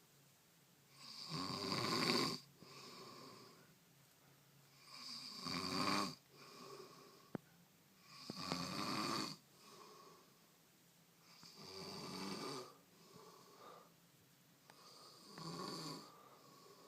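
Heavy snoring from a sleeper: five long snores about three and a half seconds apart, each followed by a softer breath.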